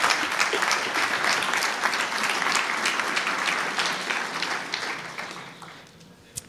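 An audience applauding, the clapping dying away near the end.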